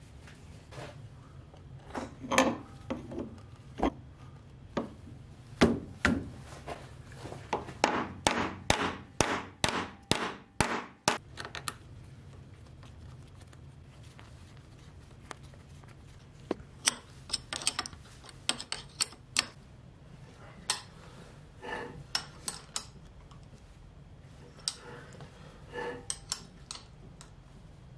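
Metal clinks and knocks of a three-jaw lathe chuck being fitted onto the spindle flange and its bolts tightened with a wrench. A fast run of sharp clicks comes about eight seconds in, with scattered clinks later on.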